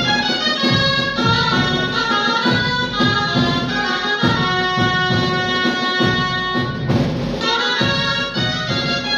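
Three dulzainas playing a lively Castilian baile corrido tune, their reedy melody carried over a steady beat from a snare drum (tamboril) and a bass drum.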